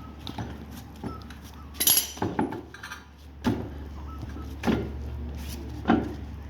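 A clatter of metal hand tools, then a series of separate knocks and clunks spaced about a second apart, as the wheel nuts are worked on a refitted car wheel. A steady low hum runs underneath.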